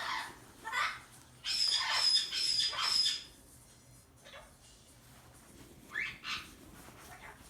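Caique parrot calling: a few short shrill calls, then a loud run of repeated high whistled notes from about a second and a half to three seconds in, and two more short calls about six seconds in.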